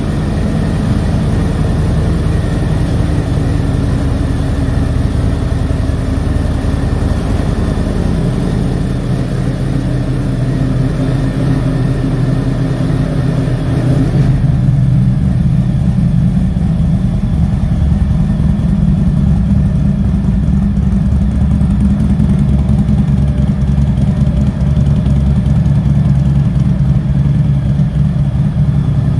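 Harley-Davidson Fat Bob's Milwaukee-Eight V-twin idling steadily, a low rumble that gets louder and deeper about halfway through.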